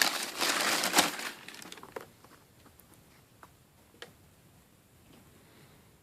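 Tissue paper crinkling as a pair of sneakers is handled and unwrapped from its shoebox, loudest in the first second and a half, then a couple of faint clicks.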